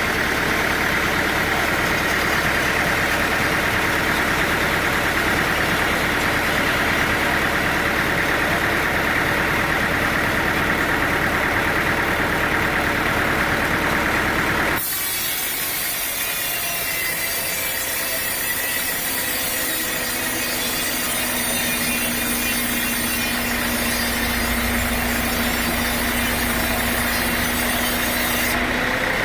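Sawmill machinery running steadily with an engine-like drone, with sawing through wood. About halfway the sound changes abruptly to a hissier mix with a steady hum, then switches back near the end.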